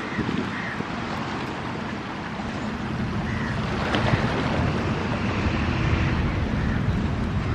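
Wind buffeting the microphone over a low rumble that grows louder from about three seconds in, with a few faint short chirps above it.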